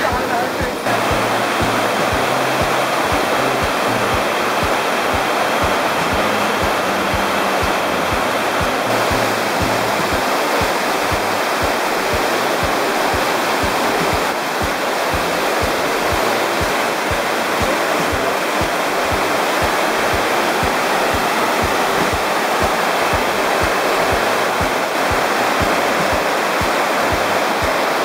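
A large waterfall in high flood run-off: a loud, steady rush of heavy water pouring over rock.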